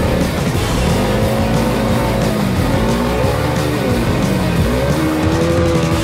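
Honda CRF300L dirt bike's single-cylinder engine revving up and falling back repeatedly as it is ridden, with background music mixed over it.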